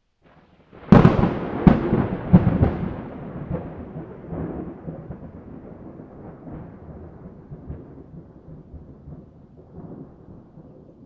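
A thunderclap: a sharp crack about a second in, three more cracks within the next two seconds, then a long rumble that slowly fades.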